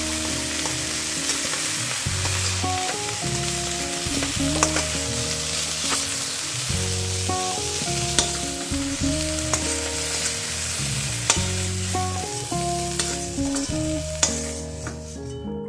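Broccoli florets sizzling in hot mustard oil in an aluminium kadai, with a metal spatula scraping and clicking against the pan as they are lifted out; the sizzle stops near the end. Background music with plucked notes and a bass line plays underneath.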